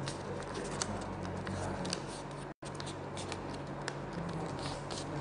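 Origami paper being folded and creased by hand: soft rustling and crinkling with small crisp clicks, over a steady low hum.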